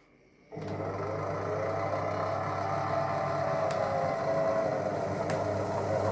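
Monsieur Cuisine Connect food processor starting its automatic dough-kneading programme about half a second in. Its motor then runs with a steady hum as the blade works the brioche bread dough in the steel bowl, with two faint ticks.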